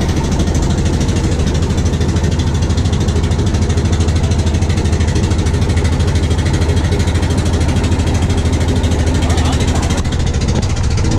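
Engine of a small wooden fishing boat running steadily under way, a low throb with a fast even beat.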